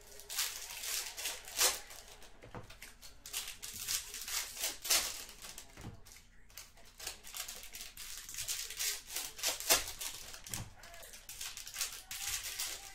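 Baseball trading cards and pack wrappers being handled: irregular rustling and crinkling broken by sharp clicks and taps, the loudest near two seconds in, around five seconds in and shortly before ten seconds in.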